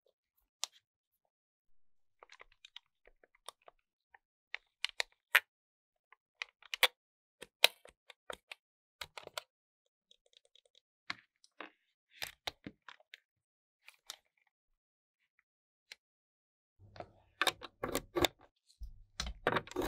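Sparse, sharp plastic clicks and taps from handling a Nintendo GameCube controller, with quiet gaps between them. Near the end the clicks come thick and fast, over a low hum.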